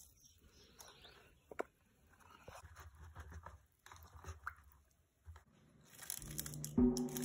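Faint rustling and light clicks from hands handling strawberries. About six seconds in, music with steady low tones and deep drum beats comes in and is the loudest sound.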